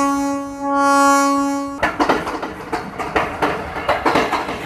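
Train horn sounding a sustained single-pitched blast that cuts off about two seconds in, followed by the rapid clatter of train wheels over the rails.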